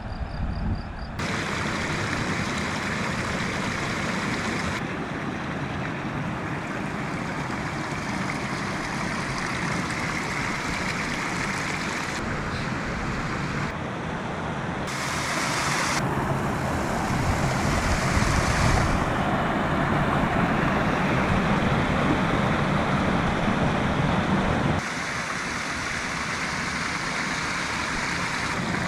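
Mercedes G 250 GD Wolf's five-cylinder diesel running as the vehicle drives, with tyre and road noise. The sound changes abruptly several times, louder for a few seconds in the second half.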